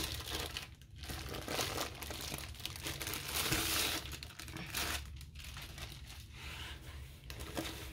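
A clear plastic sleeve crinkling as it is pulled off a rolled diamond-painting canvas, then the canvas rustling as it is handled and unrolled. The rustling comes in uneven waves and is loudest about three and a half seconds in.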